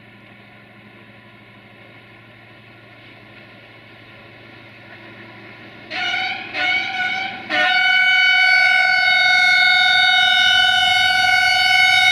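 Class 64 diesel locomotive approaching through a tunnel, its engine rumble growing louder, then sounding its multi-note horn: two short blasts about six seconds in, followed by a long held blast.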